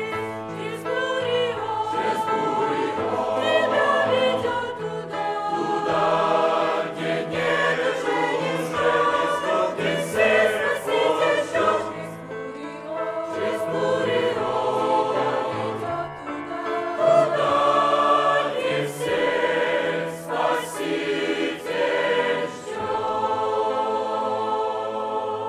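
Mixed youth choir of women's and men's voices singing a hymn in harmony, with held notes.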